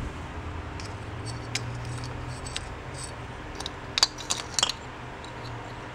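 Spark test on a Honda CB350 twin: a series of sharp snapping ticks, several close together about four seconds in, as a spark plug laid against the cylinder fins sparks. Underneath is a steady low hum. The spark shows that the second of the engine's two ignition coils is working.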